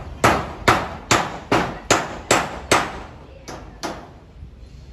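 Hand hammer striking repeatedly at a steady pace of about two or three blows a second: seven blows, a short pause, then two more before it stops.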